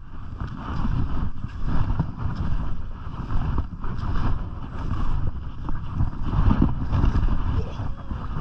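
Wind buffeting a GoPro microphone during a downhill ski run, a loud rumble that swells and eases, over the scraping hiss of skis sliding on packed snow.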